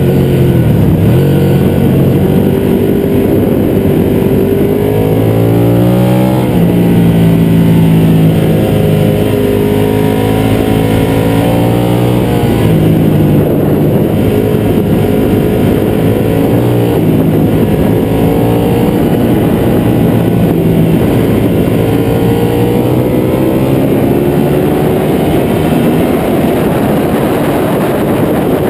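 Ducati 1199 Panigale's 1198 cc Superquadro L-twin engine at racing speed, its revs climbing and dropping several times as the rider accelerates, shifts and slows through corners. Wind rushes over the fairing-mounted camera under the engine note.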